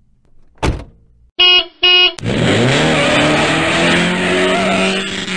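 Two short electronic beeps, then a car engine revving up loudly: its pitch rises for about a second and then holds high.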